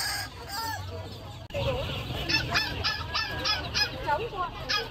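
Caged poultry calling. Softer wavering calls come first; then, after an abrupt change about a third of the way in, there is a quick run of about seven loud calls, some four a second, and one more near the end.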